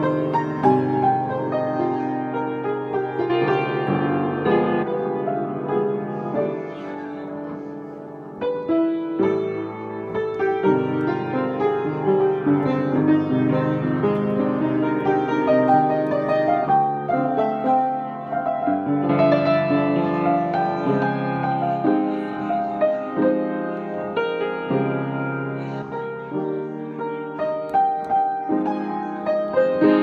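Solo piano playing, easing into a softer passage around eight seconds in, then picking up again.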